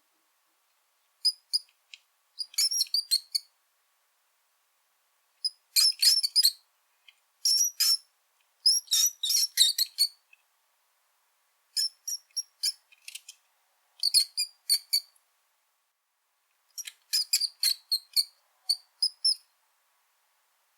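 Brown rat squeaking: clusters of short, very high-pitched squeaks in rapid runs, each run lasting about a second, separated by gaps of silence.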